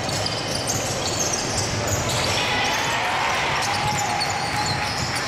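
Basketball game noise in a large sports hall: a ball bouncing on the wooden court, sneakers squeaking in short, high-pitched chirps, and players' voices in the background.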